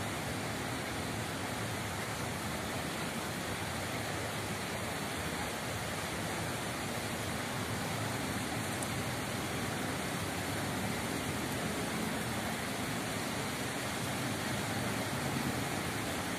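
Steady rushing of running water in a small stone-walled channel, an even hiss with no breaks.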